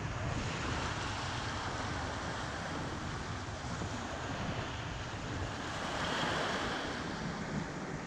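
Small waves of the sea washing up onto a sandy beach and drawing back, a continuous wash of surf with one wave a little louder about six seconds in. Wind buffets the microphone underneath.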